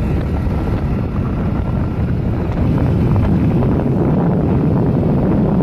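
Wind buffeting the microphone of a moving vehicle, with steady low road and engine noise; it cuts off suddenly at the end.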